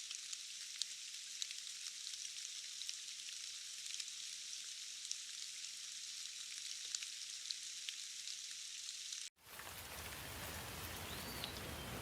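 Steady rain hiss with scattered sharp ticks of drops. About nine seconds in it cuts off abruptly and gives way to a fuller, deeper rain sound with a brief high chirp near the end.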